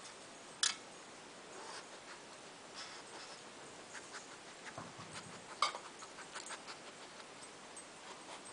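Dog nosing tennis balls around in a metal muffin tin: scattered light taps and knocks, with two sharper clanks, one about half a second in and one a little past the middle.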